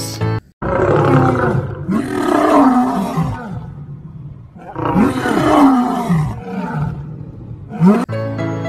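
Male lion roaring: two long roars a couple of seconds apart, then a short one near the end.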